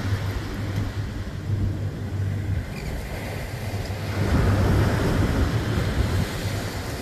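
Ocean surf breaking and washing up the beach, with wind rumbling on the microphone; the surf swells louder about four seconds in.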